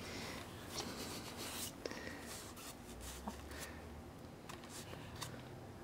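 Faint rustling with scattered light taps and clicks, spread irregularly, in a quiet small room.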